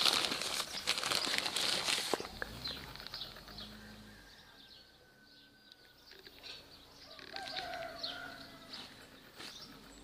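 Polyethylene grow bags of oyster mushroom blocks crinkling and rustling under a hand for about the first two seconds. After that it is quieter, with faint bird chirps.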